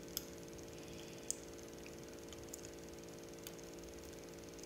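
Faint scattered clicks, about one a second, from a plastic floss pick worked between the teeth, over a steady low hum in a quiet room.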